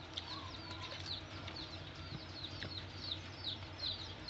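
Small birds chirping in the background: many short, high, falling cheeps, several a second, over a low steady hum.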